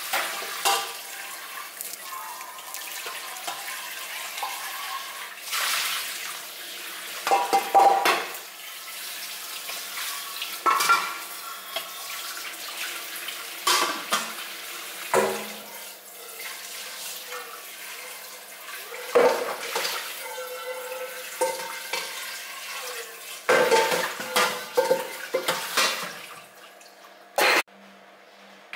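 A raw whole chicken being handled and stuffed in a stainless steel bowl: wet handling noise, with irregular knocks and clatters of the metal bowl, some leaving a short ring.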